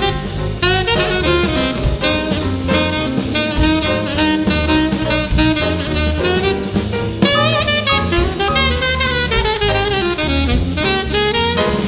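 Background jazz music: a saxophone playing a melody over a drum kit.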